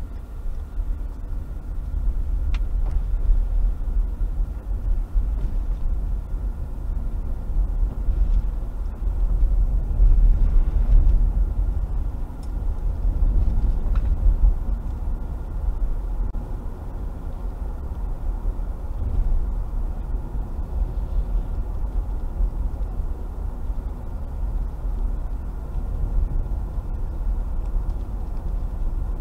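Car driving on a wet road, heard from inside the cabin: a steady low rumble of tyres and engine that swells and eases a little, with a few faint clicks.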